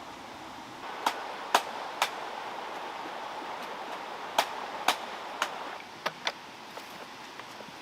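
A series of sharp knocks or taps, about eight in all and irregularly spaced, over a steady hiss.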